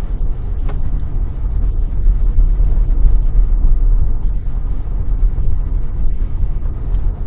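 Steady low rumble of a supercharged Pontiac Grand Prix GTP being driven, heard from inside the cabin: engine and road noise, with a few faint ticks.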